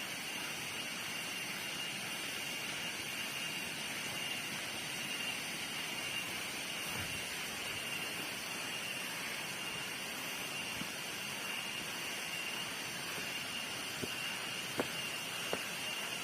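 A steady high-pitched buzzing tone held over an even hiss, with a few light clicks near the end.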